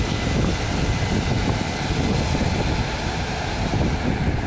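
Case 8230 combine harvester running while it harvests, a steady mechanical rumble, with wind buffeting the microphone.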